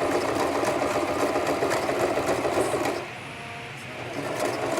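Sewing machine running fast, stitching through doubled hair wefts; it stops about three seconds in and starts up again about a second later.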